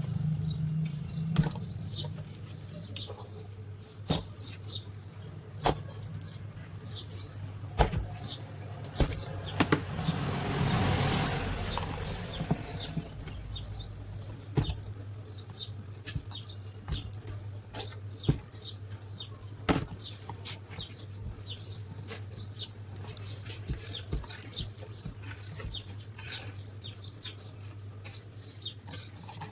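Small metal parts and hand tools clinking and tapping at irregular intervals, over a steady low electrical hum, with a brief louder rush of noise about ten seconds in.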